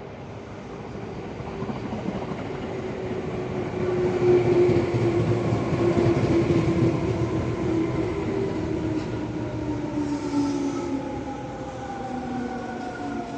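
Electric train drawing near and going by, growing louder to a peak a few seconds in, with a rumble and a motor whine that slowly falls in pitch.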